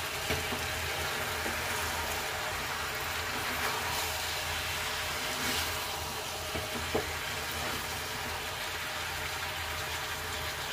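Aubergine, potato and tomato sizzling in oil in a pan while a spatula stirs them to mix in the spices, with a few short knocks of the spatula against the pan.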